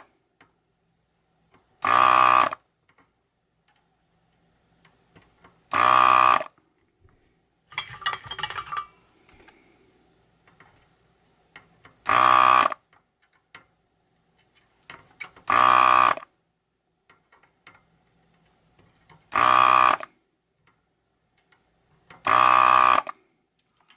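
Electric desoldering gun's built-in vacuum pump buzzing in short bursts, six times, each lasting well under a second, as the trigger is pulled to suck molten solder out of circuit-board holes. A brief irregular crackle comes about 8 seconds in.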